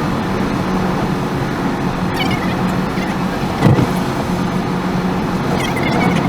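A car's steady road and engine drone, heard from inside while driving, with one short thump a little past halfway.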